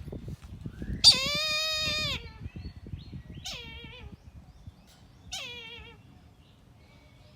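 A kite giving three thin, mewing calls. The first is long and loudest, about a second in, followed by two shorter, fainter ones, each dropping in pitch at the end.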